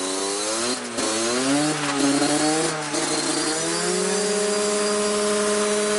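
A moped engine revving hard while it drives its rear wheel on a roller speed-test bench. The pitch climbs unevenly over the first couple of seconds, then holds high and steady at full throttle. This is the test for a tuned moped that goes faster than the legal limit.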